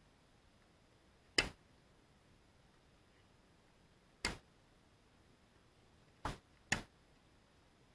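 Tennis rally: a tennis ball is struck by strung rackets and bounces on the hard court, giving four sharp pops. One comes about a second and a half in, another past four seconds, and a quick pair of hit and bounce comes near the end.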